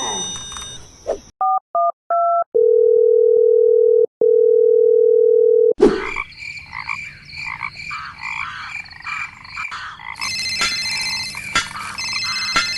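Telephone sound effects: three short two-note keypad beeps, then a steady dial tone broken once briefly. Then a busy run of electronic chirps, turning about ten seconds in into a fast repeating trill like a phone ringing.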